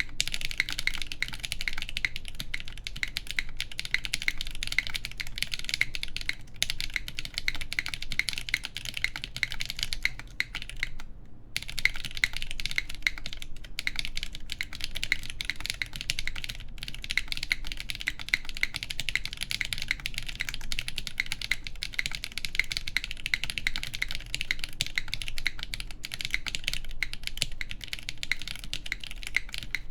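Continuous fast typing on a Neson 700E mechanical keyboard with Krytox-lubed KTT Yexia switches, GMK keycaps and an aluminum plate: a dense stream of key clacks, with one brief pause about a third of the way through.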